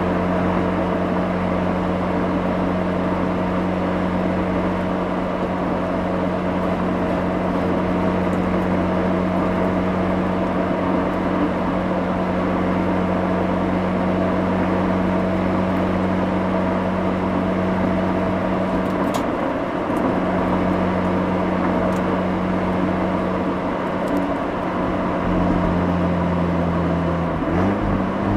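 Mazda RX-8's twin-rotor Wankel rotary engine heard through its exhaust while driving, holding a steady note at constant engine speed over road and wind rush, with the pitch changing near the end.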